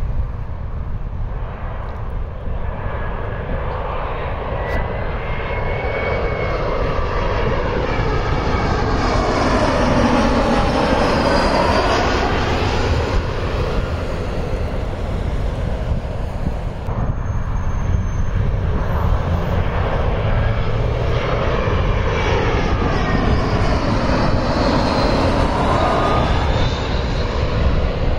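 Two twin-engine jet airliners passing low overhead on landing approach, one after the other. Each pass is a swelling jet engine whine and rush with a sweeping, phasing tone that peaks as the plane goes over, the first loudest about ten seconds in, the second near the end.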